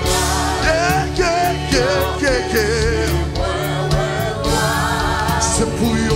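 Live gospel worship singing: several voices, a lead singer and a praise team, over instrumental backing with a steady beat.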